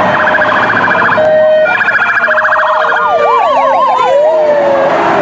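Sirens of an ambulance and a police car sounding together. Fast yelp warbles fill the first few seconds, then slower rising-and-falling wail sweeps come in about three seconds in, over a steady traffic noise.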